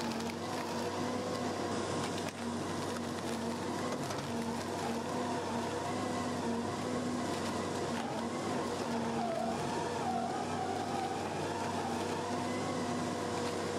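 Twin-shaft stump shredder running as its toothed rotors chew through tree stumps and roots: a steady mechanical drone with a constant low hum, whose higher tones waver in pitch now and then.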